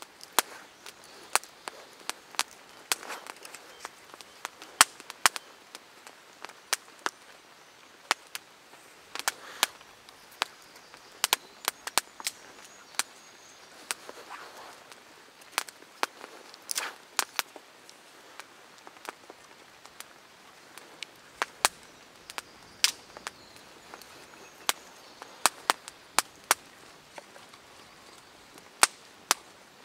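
Small campfire of split sticks crackling, with irregular sharp pops and snaps over a faint steady hiss.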